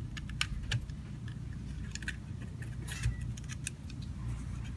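Irregular small clicks and light rattles of jumper-cable connectors being handled and pushed onto a sensor module's pins, over a steady low hum.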